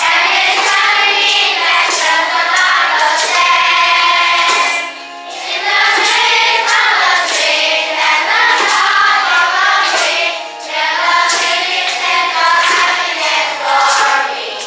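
A class of fifth-grade children singing together as a choir, with short breaks between phrases about five and ten seconds in.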